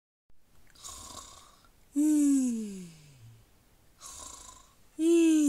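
A person snoring twice in an exaggerated way: each time a soft hissing breath in, then a loud drawn-out snore whose pitch slides steadily down. The second snore starts about five seconds in.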